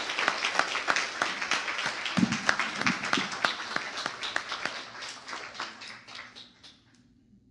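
Congregation applauding: many hands clapping, with a few brief voices in the crowd about two seconds in, the applause dying away near the end.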